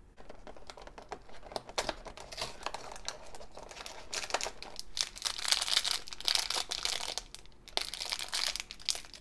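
Foil blind bag of a Disney Doorables figure crinkling as it is pulled out of its cardboard box and handled, in a run of quick, irregular crackles that are busiest in the middle and again near the end.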